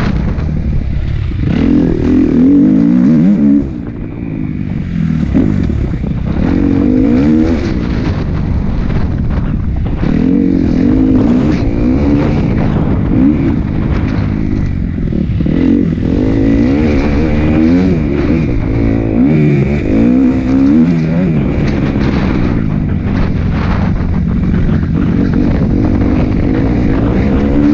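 Motocross bike engine under riding load, revving up and falling back over and over as the throttle is worked through corners and over rises. The revs cut off sharply about four seconds in, then climb again.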